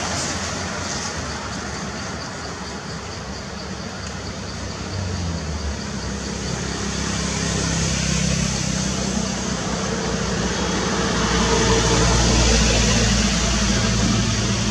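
Low engine rumble of motor traffic under a steady high hiss, growing louder about two thirds of the way through.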